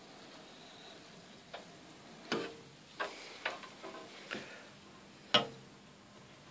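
A run of short, sharp clicks and knocks from handling at a glass cutting table, about seven of them over a few seconds, the loudest near the end.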